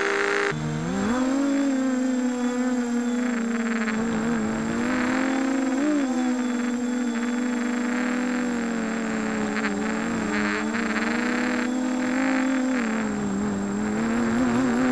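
Brushless motors and propellers of a ZMR 250 racing quadcopter, heard through its onboard camera: a steady buzzing whine that rises in pitch over the first second or two, then wavers up and down with the throttle.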